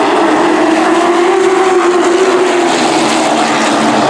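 A pack of Super Truck racing pickups running hard on a short oval as the green flag flies, several engines together. The main engine note rises a little in pitch and then falls away in the second half.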